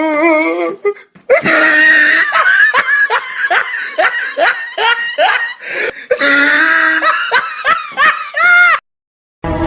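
Comedy laughter sound effect: a stretch of loud, rapid "ha-ha" bursts about three a second, then a second laugh that ends on a rising pitch. It is preceded by the tail of a wavering, whining voice for about the first second, and it cuts off shortly before the end.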